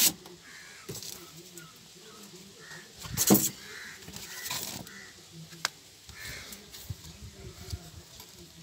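Cardboard chainsaw box being opened and handled: flaps and packing rustling, with one loud scrape about three seconds in.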